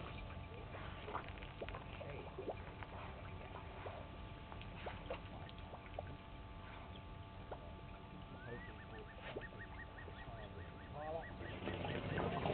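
Elephants drinking at a waterhole, with faint splashes and drips of water around their trunks. A little past the middle, a bird gives a rising note, then a quick run of short, even notes, about seven a second.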